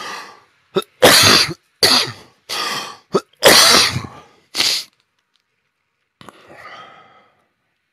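A man coughing: a run of about six loud coughs in quick succession, then a fainter, throaty sound about six seconds in.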